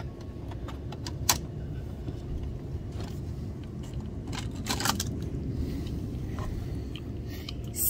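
Light plastic clicks and knocks as a hand handles a Hot Wheels Color Shifters toy car wash and a wet die-cast toy car. There is a sharp click about a second in and a short run of clicks near the middle.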